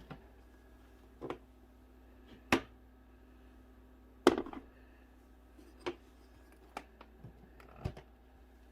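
About seven separate light knocks and clicks of handling, the loudest about four seconds in, over a faint steady low hum.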